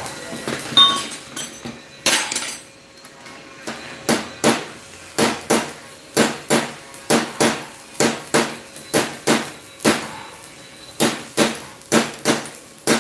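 Hammer striking a ring bent from 3/8-inch round steel rod, held in a bench vise, opening it out to the right circumference. Sharp metallic blows, a few scattered at first, then a steady run of about two a second with a short pause about ten seconds in.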